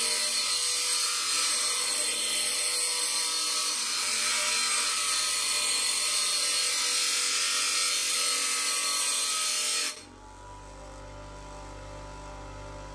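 Parkside PDOS 200 200 W bench grinder grinding the head of a small steel nail pressed hard against the wheel: a steady, loud grind that cuts off suddenly about ten seconds in as the nail is pulled away. The grinder's induction motor then keeps humming unloaded, the wheel still turning at speed rather than stalling.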